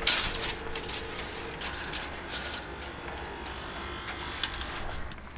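A long reel tape measure paying out as its tape is pulled along a mast, an uneven run of clicks from the reel, with a sharp clatter right at the start.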